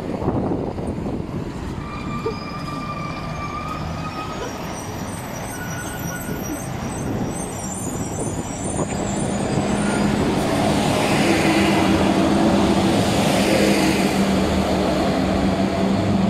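Street traffic noise, with a heavy vehicle's engine droning steadily and growing louder about halfway through.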